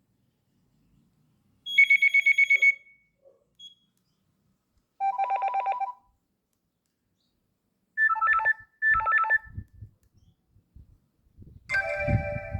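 Nokia E62 phone playing short electronic ring tones through its speaker, one after another with pauses between: a fast trill of high beeps, a lower pulsing trill a few seconds later, two quick rings of a two-note pattern, then another ring tone starting near the end.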